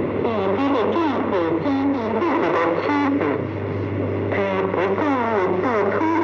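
A Mandarin-language broadcast voice from All India Radio's shortwave service, played through a National Panasonic radio-cassette recorder's speaker. The reception is poor, with a steady low hum, a noise haze and a faint high whistle under the voice.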